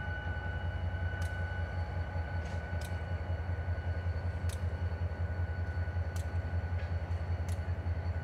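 Susquehanna (NYSW) diesel-electric locomotive running at low throttle as it moves slowly along the track: a steady low engine rumble with a faint steady whine above it, and a few brief high clicks.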